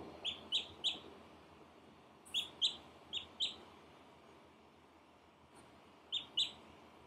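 Duckling peeping: nine short, high peeps in quick runs of two or three, with pauses between the runs.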